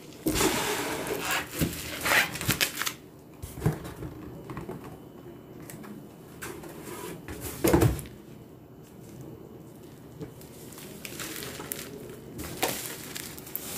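Bubble wrap and cardboard rustling and crinkling as a wrapped package is handled and lifted from its shipping box, with a few knocks and one louder thump about eight seconds in.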